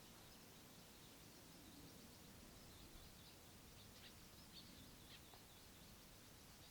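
Faint birdsong: a continuous run of short high chirps, with a few sharper notes in the middle, over a steady low hiss.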